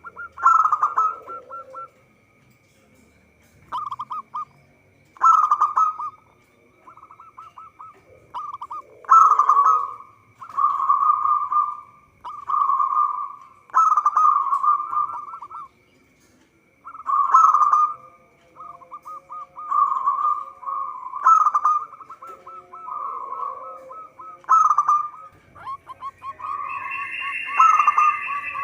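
Zebra dove (perkutut) cooing in repeated phrases of rapid pulsed notes with short pauses between, behind which a faint steady high tone runs. A higher call joins near the end.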